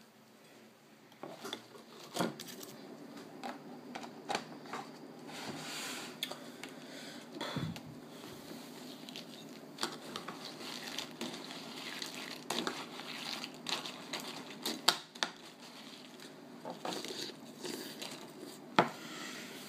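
Someone eating cereal: a spoon clicking and knocking against a bowl, with chewing and rustling handling noise close to the microphone. The clicks come irregularly after a quiet first second, and two sharp knocks stand out, one about three-quarters of the way in and one near the end.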